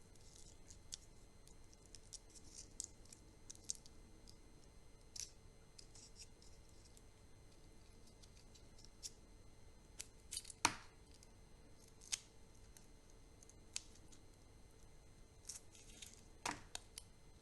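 Chocolate and candy wrappers being handled and opened: scattered soft crinkles and small ticks of wrapper material, with two sharper knocks, one a little past ten seconds in and one near the end.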